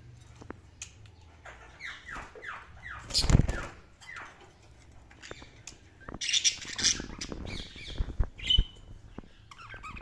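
Budgerigars chirping and squawking: a run of quick falling chirps, a loud rustling thump about three seconds in, then harsh, screechy squawks around six to seven seconds in and a short whistled note near the end.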